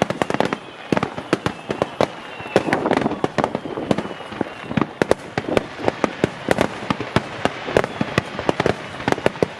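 Aerial fireworks bursting in rapid succession, several sharp bangs a second, with a faint falling whistle in the first few seconds.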